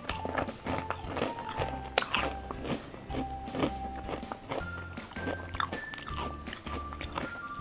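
A person chewing a potato chip with the mouth close to the microphone: many sharp, irregular crunches throughout, over soft background music.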